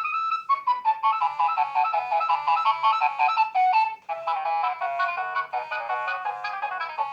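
Nokia 6100 mobile phone playing a ringtone: a fast electronic melody with several notes sounding at once, breaking off briefly about four seconds in and then going on.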